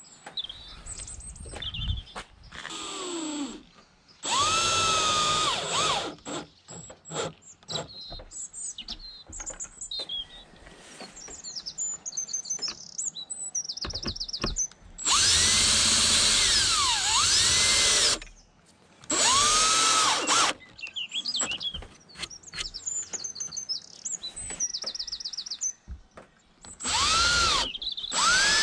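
Cordless drill driving screws into wooden boards, in four main bursts of one to three seconds, the motor's pitch rising and falling within each burst. Between bursts come clicks from handling screws and wood.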